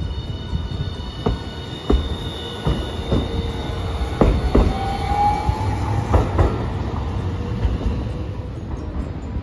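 Hiroden Green Mover LEX low-floor tram passing close by, its wheels knocking over rail joints about eight times. A high wheel squeal runs through the first half, and a short rising squeal comes in the middle.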